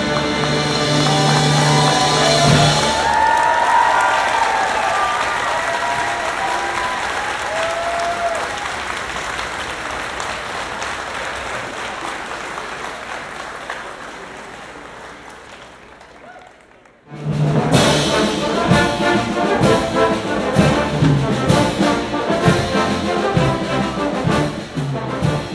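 An orchestra's final chord, heavy with brass, rings out and ends a couple of seconds in. Then an audience applauds with a few cheers, the applause fading away over about fifteen seconds. After a sudden cut, loud brass-led music with a steady beat starts.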